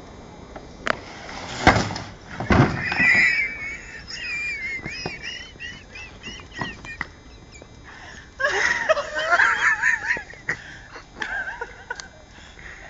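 Two loud thumps in quick succession, a crash as a man riding a plastic crocodile spring-rider toy comes off the bottom of a slide, followed by high-pitched, wavering shrieks of laughter, with a second loud burst of laughter about two-thirds of the way through.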